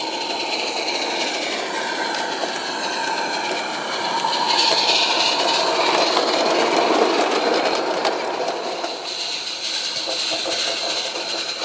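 Small live-steam garden-railway locomotive running with a train of goods wagons: steel wheels clicking and rattling over the rail joints and points. It grows louder as the wagons pass close, about halfway through.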